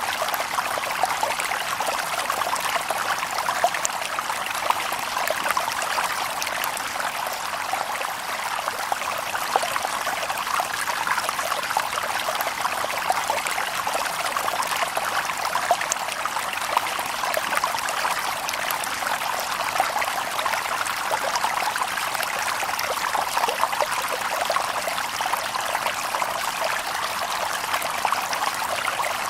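A shallow river stream babbling and splashing over stones, steady and continuous.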